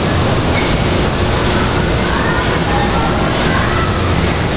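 G scale model trains running, a steady rumble with a few short, faint high squeals.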